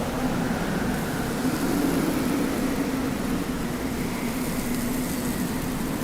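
Steady wind blowing, with a low moaning tone that wavers slightly in pitch and a fainter, higher whistle drifting above it.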